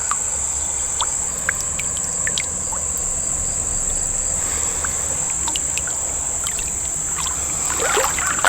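Steady high-pitched insect chorus, with a burst of splashing near the end as a hooked bass thrashes at the surface.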